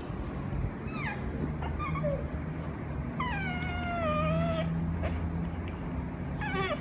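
Corgi puppies play-fighting, one giving high whining squeals: a short falling whine about a second in, a longer whine that slides down in pitch from about three seconds to nearly five, and a brief one near the end, over a low steady rumble.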